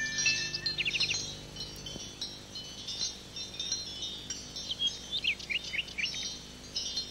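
Soft twinkling chime-like shimmer with birds chirping: a short run of quick falling chirps about a second in and a longer run around five seconds in. A low steady hum underneath stops about two seconds in.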